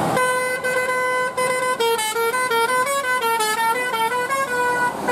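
Telolet bus horn, a multi-tone musical horn, playing a tune. It sounds one held note, then a quick run of short notes stepping up and down, then a held note again.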